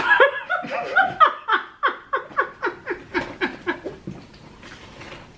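A person laughing in a long run of rapid, even ha-ha bursts, about four a second, that taper off about four seconds in.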